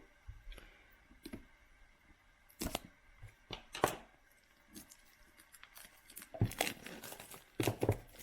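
A sealed trading-card box being opened by hand: scattered clicks and short scrapes, then denser rustling and tearing of the packaging near the end.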